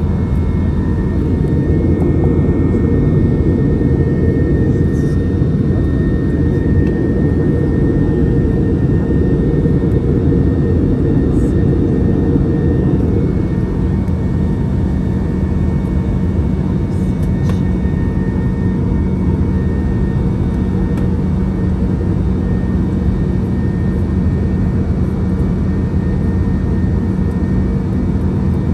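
Passenger airliner cabin noise: a steady, loud low drone of engines and airflow, with a faint steady whine above it.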